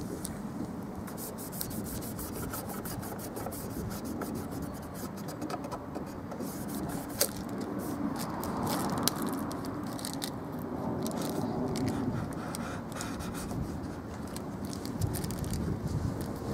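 Backing paper being peeled off a strip of Flashband self-adhesive flashing tape, and fingers rubbing the strip down onto the tops of wooden boards. It is a dry rustling and scraping sound, with many small crackles.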